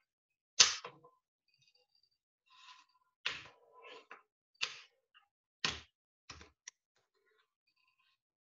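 Plastic clips of a Lenovo IdeaPad 3 15IIL05 laptop's screen bezel popping loose under a pry tool: about six sharp clicks spread over several seconds, with a little scraping between them.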